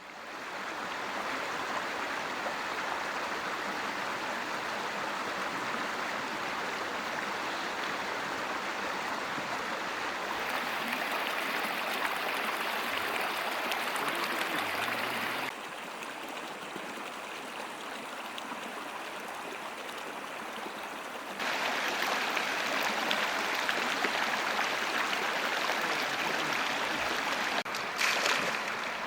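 Mountain stream flowing, a steady wash of running water. Its level and tone change abruptly three times, and there is a short, brighter burst of sound near the end.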